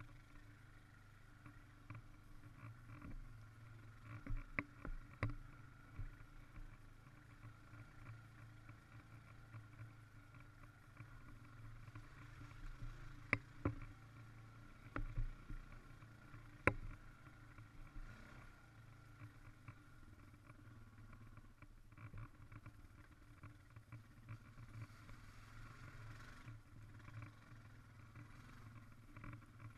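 Honda ATV engine running steadily as the machine travels over rough ground, with scattered sharp knocks and rattles from bumps, the loudest a handful in the middle.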